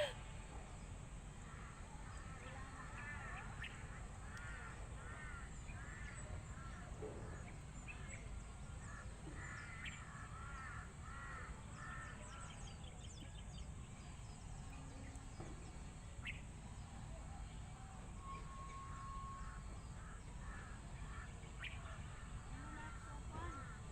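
Faint birds calling in several runs of short, quickly repeated notes, over a low steady background rumble.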